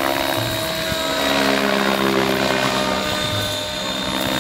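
Radio-controlled helicopter flying 3D aerobatics: its rotor and drive give a steady buzzing hum with a thin high whine, the pitch shifting a little as it manoeuvres.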